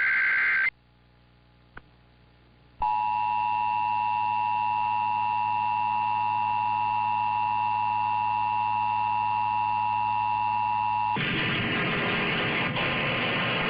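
Emergency Alert System two-tone attention signal comes in about three seconds in, holds one steady loud chord for about eight seconds, then cuts off into a broad hiss. Before it, the end of a shrill warbling SAME digital data burst stops near the start, followed by about two seconds of near silence with a single click.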